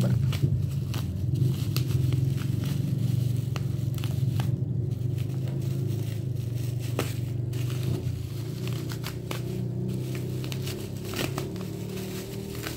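Bubble-wrap packaging crinkling, crackling and tearing as it is handled and cut open, in scattered sharp crackles. Under it runs a steady low hum.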